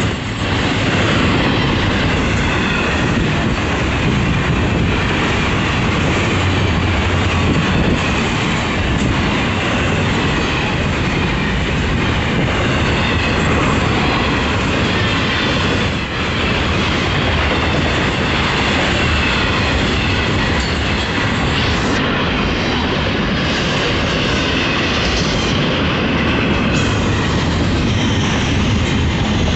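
Florida East Coast Railway intermodal freight cars, stacked containers and trailers on flatcars, rolling past at speed. Their steel wheels make a steady, loud noise on the rails that runs without a break.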